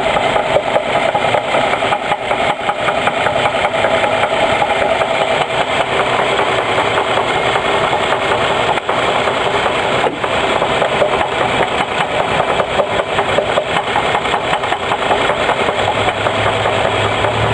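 A 2002 Chevy Trailblazer's 4.2-litre inline-six runs steadily with a rapid, regular knock from inside the engine.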